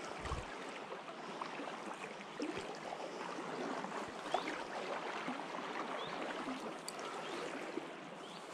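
Shallow river flowing over gravel and stones: a steady rushing of water, with a few faint clicks and a short low thump at the very start.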